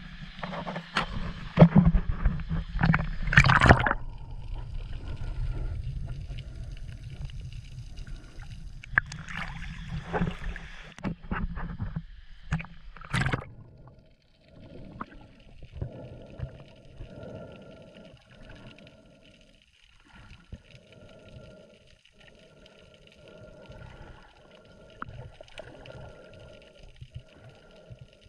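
Sea water splashing and gurgling around a microphone at the surface. About a third of the way through it turns to quieter, muffled underwater sound with soft repeating pulses.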